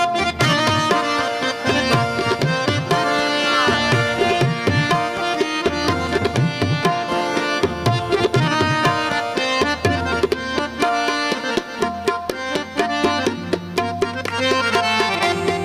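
Background music in a South Asian style: tabla drumming under melodic instruments.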